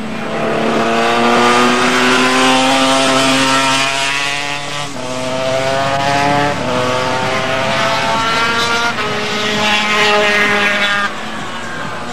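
Two-stroke Honda RS250 250cc Grand Prix racing motorcycle accelerating hard, its engine note rising in pitch through the gears with a sudden drop at each of about three upshifts, over a steady lower drone. The sound drops away sharply near the end.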